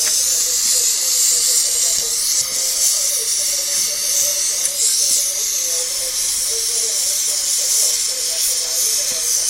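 Gas torch flame hissing steadily as it heats a metal rose red-hot.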